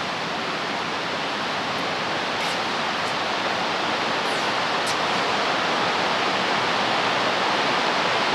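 Steady rushing noise with no distinct events, slowly growing a little louder, with a few faint high chirps.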